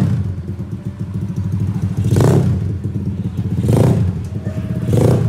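Yamaha Mio scooter's single-cylinder four-stroke engine, freshly bored up to 58 mm, running steadily, with the throttle blipped three times so that each rev rises and falls back within about half a second.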